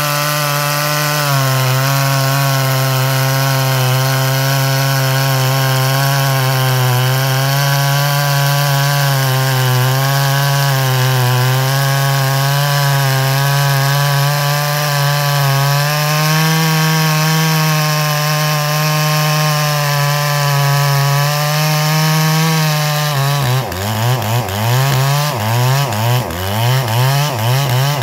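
G444 clone chainsaw, a two-stroke saw with a 36-inch bar and full-chisel chain, running at full throttle under heavy load while cutting through a big green hardwood log. The engine note holds steady with slight sags. Near the end it breaks up into rapid, uneven surges.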